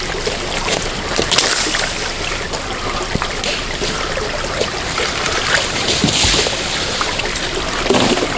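Creek water running steadily, a loud even rush with a couple of brief louder surges.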